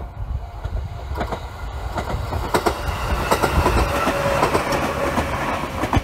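Electric commuter train on the JR Iida Line passing over a level crossing. Its rumble builds from about a second in, and from about halfway its wheels clack rapidly over the rail joints.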